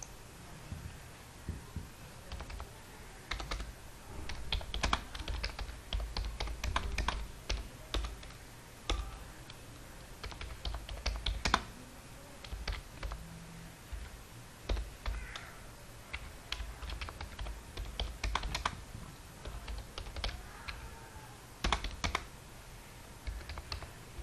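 Computer keyboard being typed on in short irregular runs of keystrokes with pauses between them.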